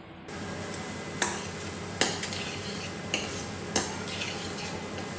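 A steel spoon stirs onion-garlic paste frying in ghee in a steel kadhai: a steady sizzle with four sharp clinks of the spoon against the pan, about one a second.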